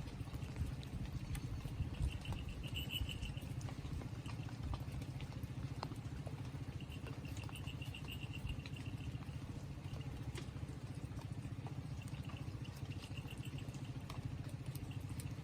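Steady rain pattering, with an insect trilling in short pulsing bursts every few seconds.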